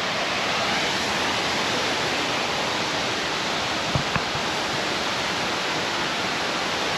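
Steady rushing of water from a stream or waterfall running high after rain. There is a brief low thump about four seconds in.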